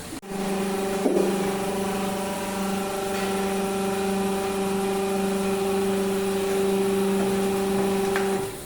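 A machine's motor running at a steady pitch with an even hum, with a single knock about a second in; the hum cuts off shortly before the end.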